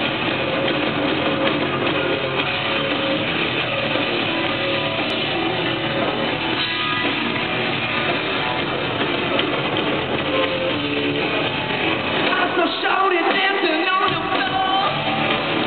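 Rock band playing live on stage, with distorted electric guitars, drums and a singing voice, heard through a small audience recorder with muffled top end. About twelve seconds in, the bass end drops out briefly.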